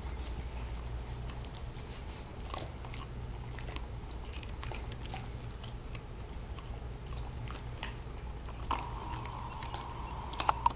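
Dog gnawing and chewing a pork chomp chew, with irregular crunching clicks, the sharpest near the end.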